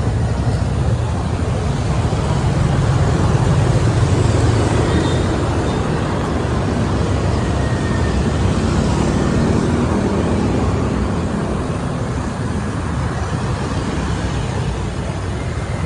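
Steady street traffic noise: motor scooters and cars running along the road.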